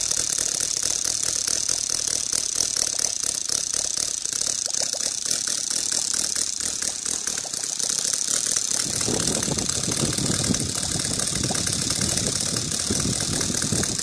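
Mercedes 1909 aero engine running steadily on a test stand, a fast, even mechanical rattle. The sound grows fuller and lower from about nine seconds in.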